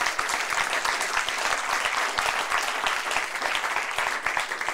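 A conference audience applauding at the close of a talk, many hands clapping at a steady level.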